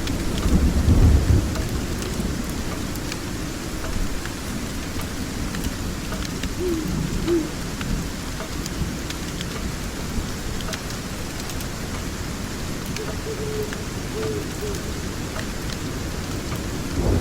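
Steady rain with a low roll of thunder about a second in, and small scattered crackles of a wood fire.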